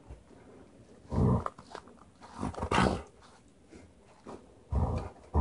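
Alaskan Malamute making three short, low vocalizations while its shedding undercoat is worked out by hand.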